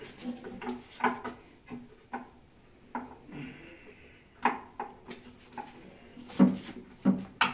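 Irregular knocks, clicks and light clatter of sink and vanity parts being handled and fitted, with a short scrape about three and a half seconds in and the loudest knocks near the end.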